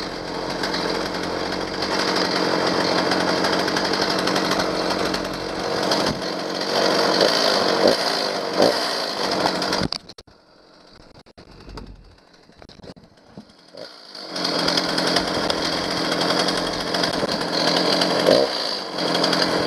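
Stihl 029 two-stroke chainsaw engine running steadily. It cuts out abruptly about halfway through, then runs again about four seconds later. The choke lever has broken off, so the saw cannot be switched off in the normal way.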